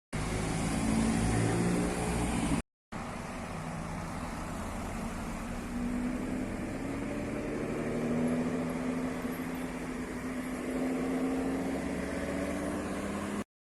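Car engines running as cars drive by slowly, their engine notes rising gently as they pull away, with a brief drop to silence at a cut about three seconds in.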